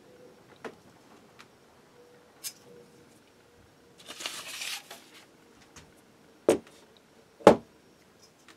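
Paper drawings rustling as they are shuffled on the bench, with a few light clicks of handled tools, then two sharp knocks a second apart as pieces of steel stock and a steel rule are set down on the workbench mat.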